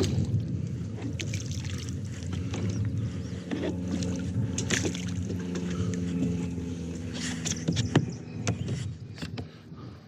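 Kayak moving on the water: paddle splashing and water noise, with scattered knocks and clunks against the hull.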